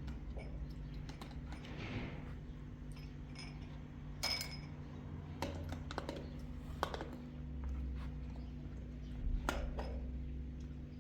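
A steady low machine hum with scattered knocks and clicks, and one ringing metallic clink about four seconds in.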